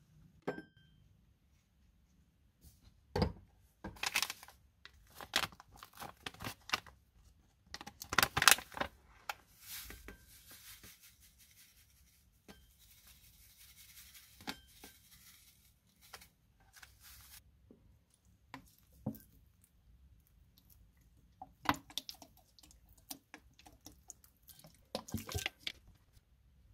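Hands handling a plastic packet of instant snow powder over a cut-glass bowl: scattered clicks, taps and crinkling with a tearing rustle, and in the middle a soft hiss as the powder is poured into the bowl.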